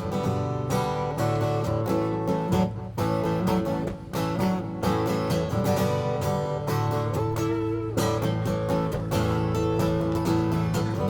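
Acoustic guitar strummed in a steady rhythm: the instrumental break between verses of a live folk song.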